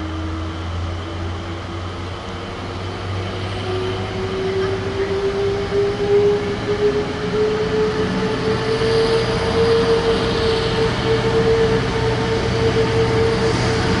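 Convoy of diesel locomotives approaching, growing steadily louder. The engine note rises in pitch over the first several seconds, then holds steady.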